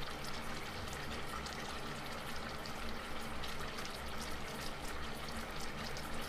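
Pot of pork sinigang broth boiling hard: a steady bubbling with many small pops, over a low steady hum.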